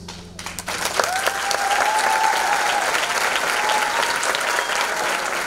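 Theatre audience applauding as the music's last notes fade, the clapping swelling about a second in and holding steady, with long cheering calls over it.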